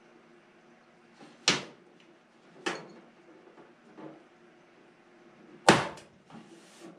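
Hand-operated blind rivet tool setting LP4-3 blind rivets in an aircraft stabilizer spar. Sharp snaps as the handles are squeezed and the rivets set: one about one and a half seconds in, another a second later, and the loudest near the end, with fainter clicks between.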